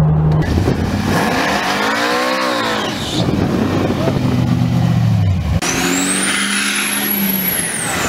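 A sequence of engines. A car engine cruises steadily, heard inside the cabin. Then a classic muscle car's engine revs up and falls back and runs on. From about five and a half seconds in, a diesel pickup truck accelerates hard with a rising turbo whistle as it blows thick dark exhaust smoke.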